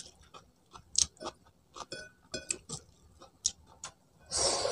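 Close-miked chewing: irregular wet mouth clicks and lip smacks, with a short louder noisy burst near the end.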